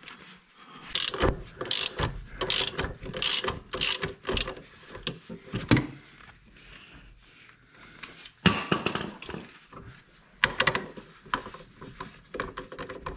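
Socket ratchet clicking in short rasping runs as the clutch-basket nut on a Vespa PX200 engine is worked loose, with a few clanks of metal tools.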